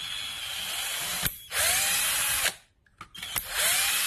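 Electric screwdriver running in three short bursts, spinning up at the start of each, backing out the screws of a power-tool battery pack's plastic case.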